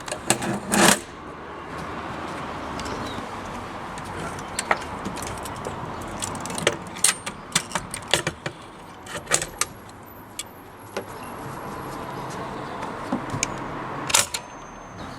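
Clicks and clunks of Imperial 55 typewriter sections being handled and fitted back together, a string of sharp irregular knocks with louder ones about a second in and near the end.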